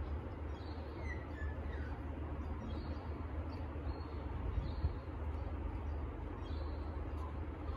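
Small birds chirping in short, repeated high calls, with a couple of falling notes about a second in, over a steady low rumble.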